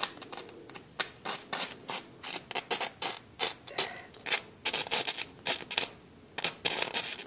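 Arcing at the dead-shorted leads of a 5S LiPo battery: irregular crackling snaps and sputters, several a second, with denser sputtering about five and seven seconds in, as the short vaporizes the metal of the leads.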